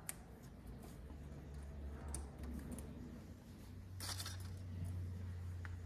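A few light metallic clinks and clatters of small metal parts being handled on a workbench, the loudest cluster about four seconds in, over a steady low hum.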